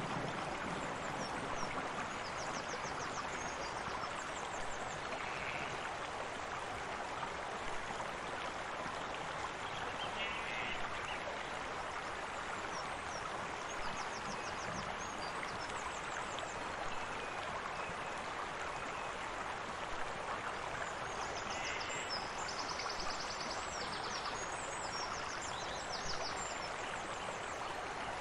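Steady running water, an even rushing wash. Faint high chirping trills come and go over it, thickest near the end.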